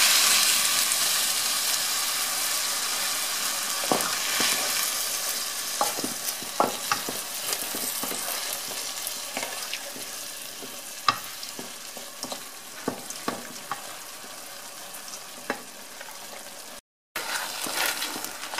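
White wine sizzling as it hits the hot rice and chicken in the pan, the hiss loudest at first and fading steadily as the liquid is stirred in. A wooden spoon scrapes and knocks against the pan with scattered clicks throughout.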